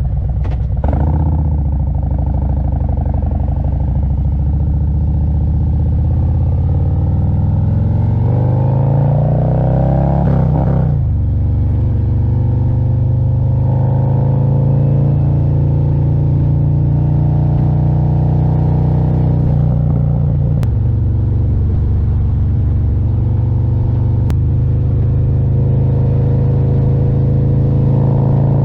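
2024 Harley-Davidson Road Glide's Milwaukee-Eight 117 V-twin under way on a ride. The revs climb in a few rising sweeps about eight to eleven seconds in as the bike accelerates, then settle into a steady cruise.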